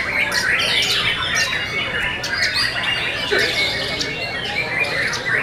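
White-rumped shamas singing: many quick rising and falling whistled phrases from several birds overlapping without a pause.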